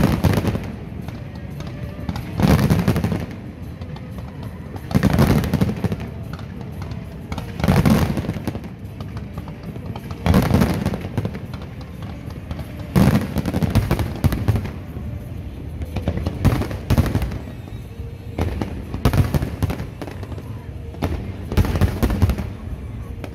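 Aerial fireworks display: shells bursting in a series of loud booms about every two and a half seconds, with clusters of sharper cracks in between.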